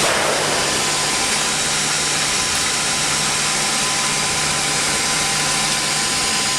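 Automatic circumferential welding machine running: a steady loud hiss with a constant low hum and a thin high tone.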